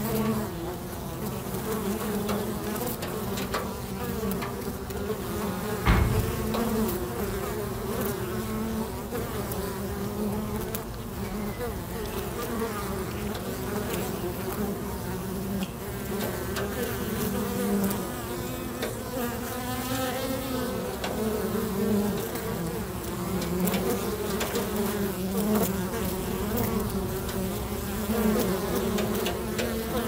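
Honey bees buzzing steadily around a wooden hive: a continuous, slightly wavering hum. A single thump sounds about six seconds in.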